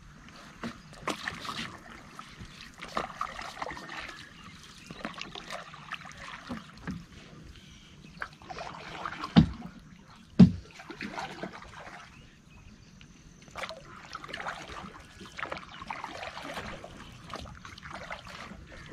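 Hand-paddled wooden rowboat moving through the water: repeated paddle strokes with splashing and dripping water. About halfway through come two loud knocks about a second apart.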